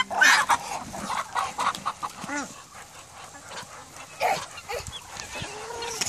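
Mixed backyard poultry flock of Muscovy ducks, guineafowl and chickens calling: a run of short calls in the first half-second, then scattered quieter calls.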